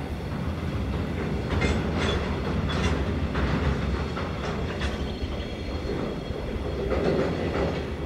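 Narrow-gauge freight train's wagons rolling along the track: a steady low rumble with irregular clicks and clanks from the wheels on the rails.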